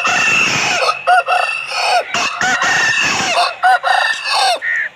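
Aseel rooster crowing, a long wavering crow that cuts off about half a second before the end.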